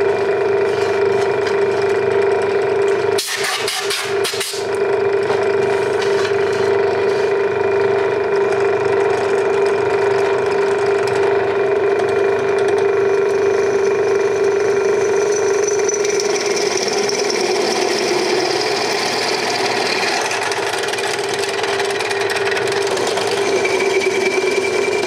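Bench drill press running with a steady motor hum as its twist bit drills into a square iron tube, with a higher cutting hiss building in the second half as the bit works through the metal. A few sharp knocks about three seconds in.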